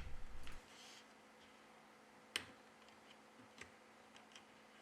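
A few faint, sharp clicks of small parts and tools being handled inside an opened Samsung Galaxy S10 Plus, the clearest about two and a half seconds in and a lighter one about a second later, with near silence between.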